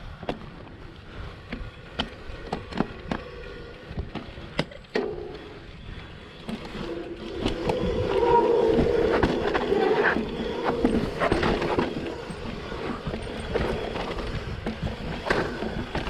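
Electric mountain bike riding down a rocky technical section: the tyres and frame knock and rattle over rocks many times. About eight seconds in the sound grows louder for a few seconds.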